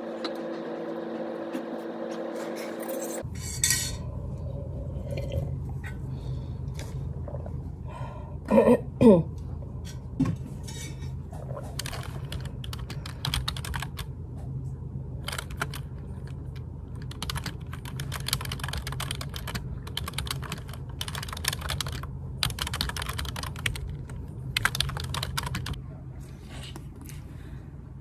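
Typing on a computer keyboard with round typewriter-style keycaps: runs of quick key clicks, densest in the second half, over a steady low hum. Two brief loud sounds falling in pitch come about eight or nine seconds in.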